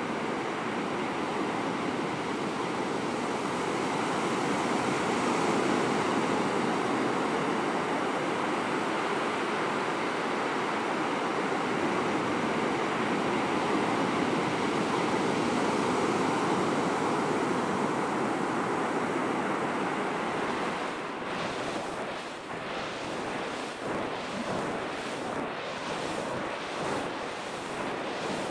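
Ocean surf breaking: a steady, even rush of waves. About 21 s in it turns uneven and gusty, with wind buffeting the microphone.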